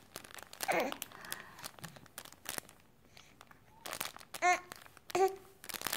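Baby cooing and babbling in a few short high-pitched sounds, the clearest about four and a half and five seconds in, with light crinkling and clicking from the crinkly toys under his hands.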